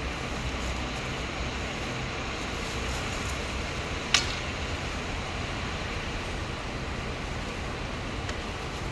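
Steady outdoor background noise, an even hiss and hum, with a single sharp click about four seconds in.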